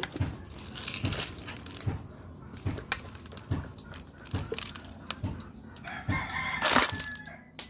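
A rooster crowing, loudest about six to seven seconds in, over a run of short sharp clicks or knocks.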